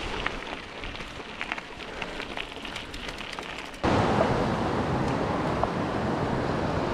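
Mountain bike rolling on a gravel trail: tyres crunching, with light clicks and rattles. About four seconds in it cuts abruptly to a louder, steady rushing noise as the bike crosses a metal footbridge over a fast river.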